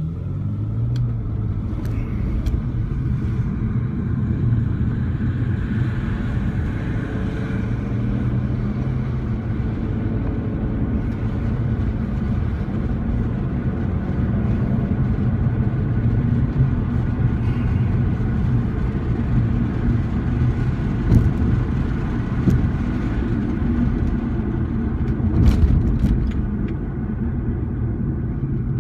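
Car engine and tyre noise heard from inside the cabin while driving, a steady low drone, with a few brief knocks, the loudest a little after 25 seconds in.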